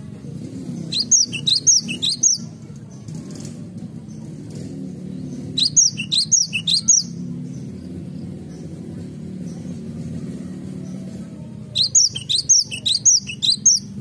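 Cinereous tit singing: three bursts of quick, sharp, high repeated notes, each lasting one to two seconds, about four to five seconds apart, over a steady low hum.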